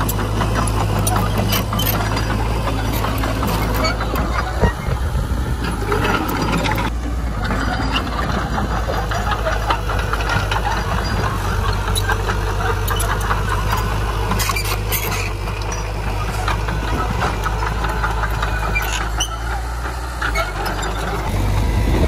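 Heavy diesel engines of earthmoving machinery running steadily: a bulldozer and dump trucks working together, a constant low drone with occasional clanks.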